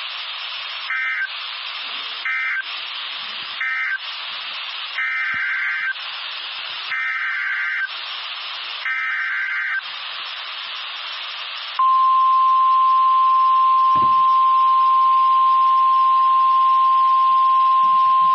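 NOAA Weather Radio EAS tones over radio static. First come three short warbling data bursts, the SAME end-of-message code closing the flash flood warning. Then three longer bursts, the SAME header for the tornado warning. About twelve seconds in, the 1050 Hz warning alarm tone starts: one loud, steady beep.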